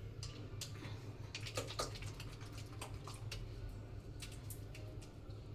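Wet hands being rubbed and pressed together during six-step handwashing: scattered faint clicks and light squelches over a steady low hum.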